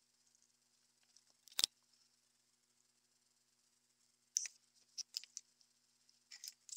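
Faint rustle of a cloth rag wiping a metal push drill, with one sharp knock about a second and a half in. From about four seconds on there is a cluster of clicks and knocks as the metal push drills are picked up and laid down on a hard bench top.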